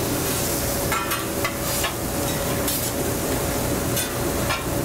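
Food sizzling in oil on a flat-top griddle (plancha), with a cooking utensil scraping and clinking against it several times.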